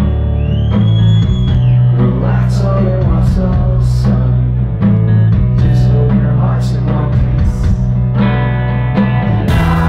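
Rock band playing live and loud, led by distorted electric guitar over a heavy bass line and drums. The music builds near the end into crashing cymbals.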